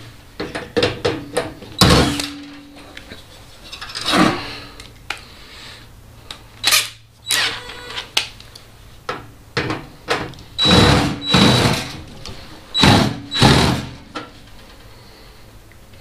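Irregular knocks and clatter of tools and parts being handled against an opened microwave oven's sheet-metal casing, a few of the knocks ringing briefly.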